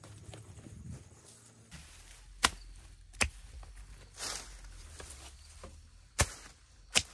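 Hand tool chopping: four sharp, separate strikes at uneven intervals, with a softer swish between them.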